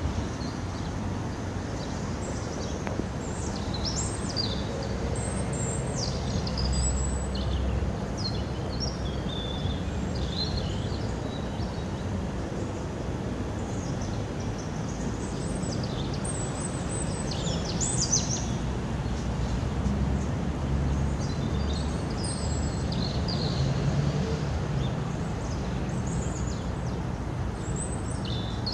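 Small birds chirping in scattered clusters of short high calls, over a steady low background rumble.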